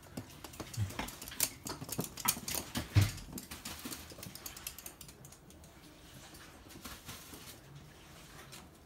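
Toy poodle's claws clicking and pattering on a hard floor as it walks. There are quick irregular ticks over the first few seconds, with a couple of soft thumps, and the ticking fades as the dog moves off into the maze.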